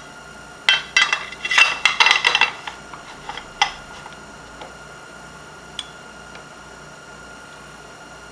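Milling machine end mill cutting through the end of an aluminium channel: a rapid clatter of sharp metallic clinks lasting about two seconds, then a few single ticks. The running machine keeps a steady whine underneath.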